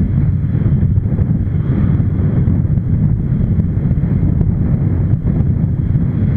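Steady low wind rumble over the camera microphone of a moving motorcycle, blended with the bike's running noise.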